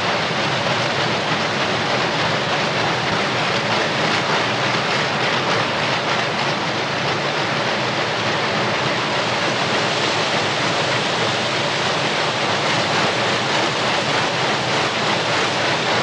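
Textile mill machinery running: a loud, steady, dense din with a low hum underneath.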